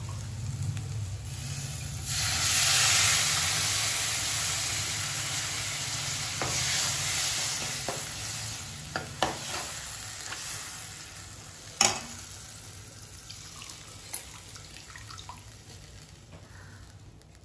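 Tamarind water poured into hot oil and spiced masala in a kadai sizzles loudly from about two seconds in. The hiss fades slowly as the liquid cools, while a steel ladle stirring the pan clinks against it a few times.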